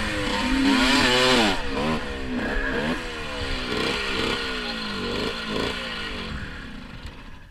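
Honda MTX two-stroke dirt bike engine revving up and down, then a string of shorter falling revs as the bike slows, fading toward the end.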